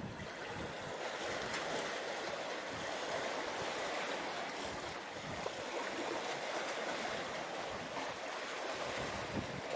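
Steady hiss of wind and sea waves, with no distinct engine note or other event standing out.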